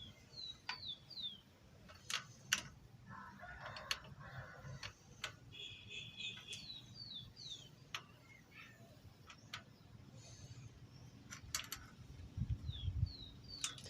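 A bird chirping in short falling notes, three or four at a time, a few times over, with scattered light clicks and taps from small engine parts being handled.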